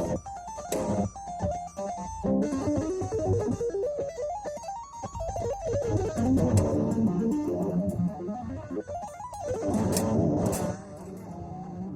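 Electric guitar playing a progressive-style passage of quick, changing notes.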